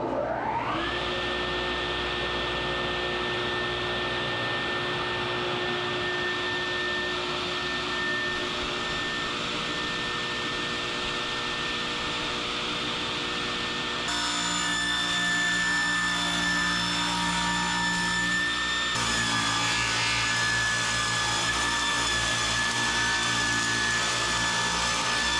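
Oliver 16-inch table saw spinning up about a second in, then running with a steady high whine along with the rotary three-phase converter. From about halfway the blade is cutting through a thick Douglas fir timber.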